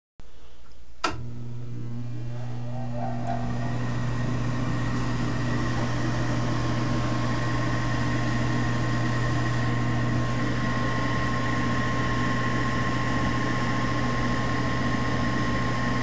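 Intertherm mid-efficiency gas furnace's draft inducer fan motor switching on with a click about a second in, spinning up with a rising whine, then running with a steady hum. This is the first stage of the furnace's start-up cycle, before ignition.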